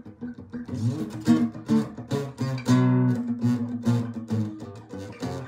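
Acoustic guitar being played: a run of short picked low notes broken by a few strummed chords that ring out, the loudest about a second and a half from the end.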